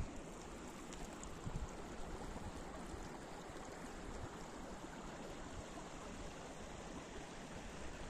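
Small meadow stream running over its shallow channel: a steady, even rush of water. A brief gust of wind buffets the microphone about a second and a half in.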